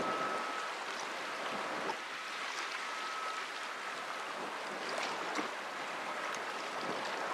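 Steady wash of choppy river water and wind outdoors, with no clear engine drone from the passing ship. A thin high tone comes and goes three times.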